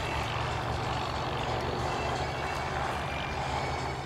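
Boeing B-17 Flying Fortress's four Wright R-1820 Cyclone radial engines running at low taxiing power, a steady low rumble with a fast pulsing beat from the propellers.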